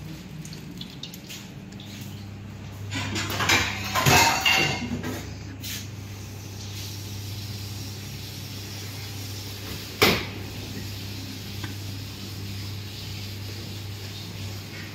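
Clatter of kitchen utensils and dishes being handled, loudest about three to five seconds in, with one sharp knock about ten seconds in, over a steady low hum.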